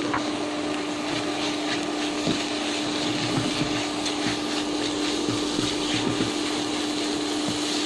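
Raw ground pork sizzling over high heat in a wok with oil and dried shrimp, a wooden spatula scraping and breaking up the meat, over the steady hum of an induction cooktop.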